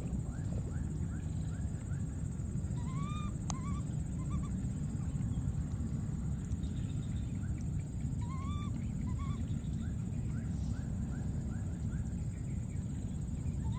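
Baby monkey giving short, arched, squeaky calls in small groups of two to six, over a steady low rumble and a steady high insect-like drone.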